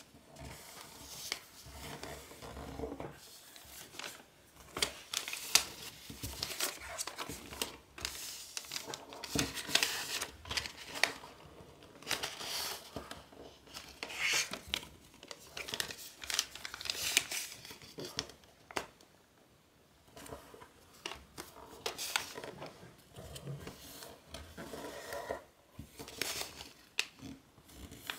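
Origami paper rustling and crinkling as hands fold and press creases into a pleated strip of paper, with irregular crackles and sharp clicks and a brief lull about two-thirds of the way through.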